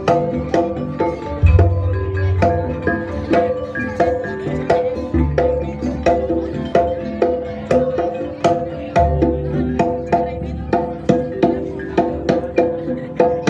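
Live jaranan gamelan music: rapid hand-drum strokes over repeating metallophone notes, with a deep gong stroke about every four seconds.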